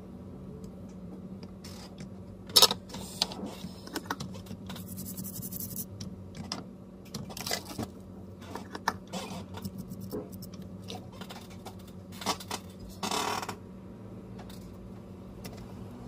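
Small metal tools and parts being handled on a repair bench: scattered scrapes, clicks and rattles, with a sharp click about two and a half seconds in and a rustle lasting about a second near the end, over a steady low hum.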